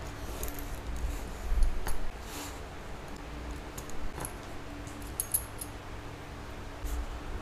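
Brass roller buckles on leather straps clinking against each other as the pieces are handled and set down, a few light metallic clicks over soft handling rustle, the brightest clinks about five seconds in.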